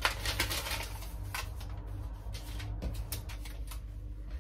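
Paper birthday banner being handled, with scattered rustles and light clicks, loudest at the very start, over a low steady background hum.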